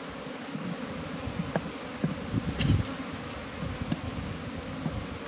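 Honeybees buzzing steadily around an open hive, with a few clicks and knocks from a knife working the wooden top bars, the knocks heaviest about two to three seconds in.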